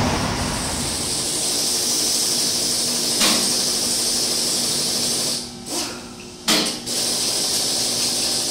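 Pressurised spray hissing steadily from a nozzle, cut off twice for a moment about five and six seconds in, with a faint steady hum underneath.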